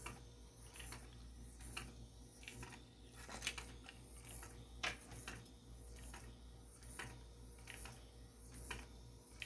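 3D-printed plastic claw-foot walker robot toy, driven by a small N20 gear motor, walking on a wooden desk. It clicks once a step in a steady rhythm, roughly once a second.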